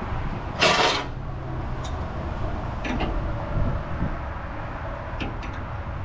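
Hand tools working on the hydraulic fittings of a tracked lift: a short harsh metallic scrape about half a second in, then a few light metallic clicks and clinks.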